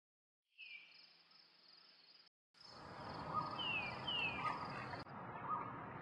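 Nature ambience: a steady high insect trill, cricket-like, with a few short falling bird whistles over a background hiss. It starts about half a second in and drops out briefly about two seconds in, then returns louder.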